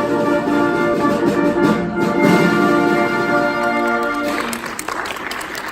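Short orchestral fanfare of held chords greeting a prize announcement, giving way a little over four seconds in to audience applause.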